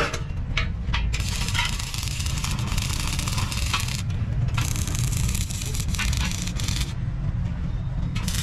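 Arc welding on a steel wheelbarrow frame: the crackling hiss of the arc, broken by short pauses about four and seven seconds in as the welder stops and strikes again, over a steady low hum.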